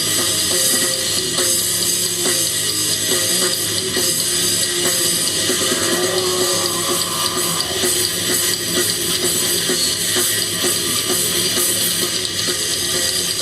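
Rock band playing live, loud and continuous: electric guitars with drum kit.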